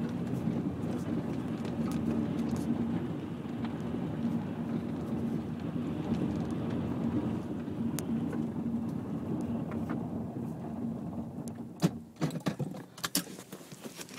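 Subaru driving through a hailstorm: a steady road and engine drone with fine ticks of hail on the body. After about ten seconds the drone dies away and loud, separate knocks of hailstones striking the car follow near the end.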